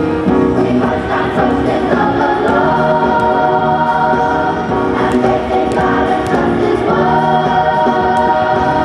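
Choral music playing loudly, many voices holding long sustained notes and chords.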